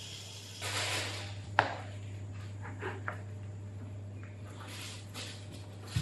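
Water splashing in a stainless steel saucepan under a kitchen tap while it is rinsed by hand, with a sharp clink of metal on the pot about a second and a half in and a few lighter clinks after. A single knock comes right at the end.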